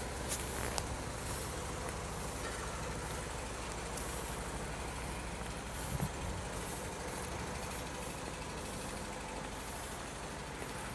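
A large engine running steadily with a low, even drone.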